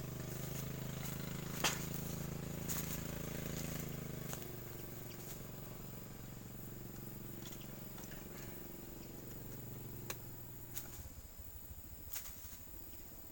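A steady engine hum that fades away over about ten seconds, with a few faint clicks.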